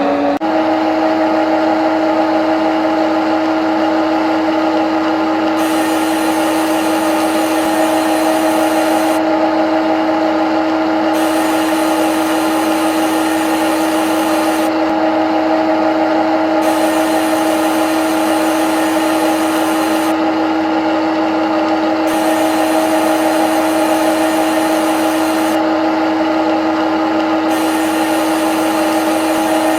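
CNC lathe running: a steady whine, with a higher hiss that comes and goes in a regular cycle about every five and a half seconds.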